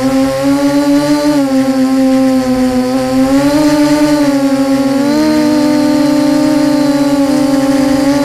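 Electric motors and propellers of an HK Scarab 360 FPV model in flight: a steady hum whose pitch drifts up and down as the throttle changes, with a brief wavering where two motor pitches meet about five seconds in.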